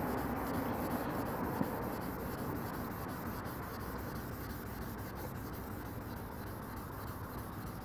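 Folded 1200-grit waterproof sandpaper rubbed by hand over a wet, soapy car hood: a steady wet scrubbing as the paint is wet-sanded.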